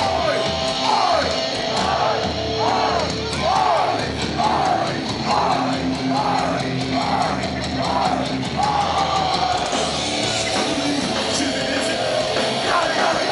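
Hardcore punk band playing live: distorted rock music with drums and shouted vocals. Through the first eight seconds a short rising-and-falling figure repeats about every 0.7 s.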